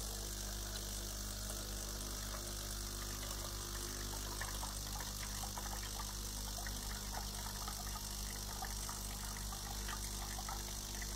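Coffee machine's electric water pump running steadily under test, pumping water into a cup, an even mechanical hum.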